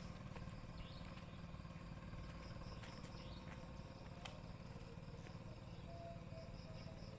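Faint outdoor ambience: insects chirping in a high, evenly pulsed string over a steady low hum, with a few sharp clicks.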